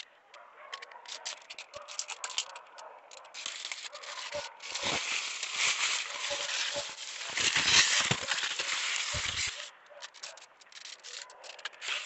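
Leaves and vines rustling and crackling as a hand pushes through dense sweet potato foliage. The rustling is densest and loudest from about three and a half to nine and a half seconds in, with a few dull bumps mixed in.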